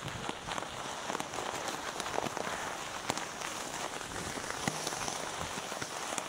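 Cannondale Trail 7 mountain bike's tyres rolling over a rough trail: a steady rushing noise dotted with irregular clicks and crackles.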